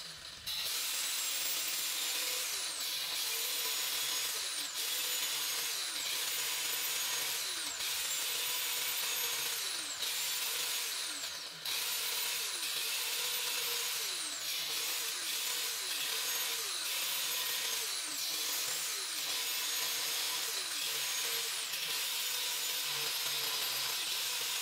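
Angle grinder with a thin cutoff disc, mounted on a homemade sliding rig, cutting into a steel plate: a steady grinding noise with a high motor whine. The whine's pitch sags and springs back up over and over, every second or two, as the disc is fed into the metal.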